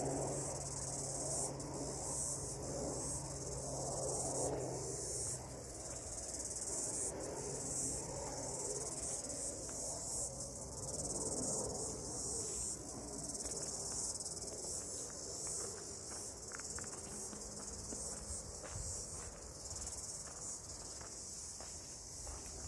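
Cicadas singing in chorus: a steady, high, slightly pulsing drone.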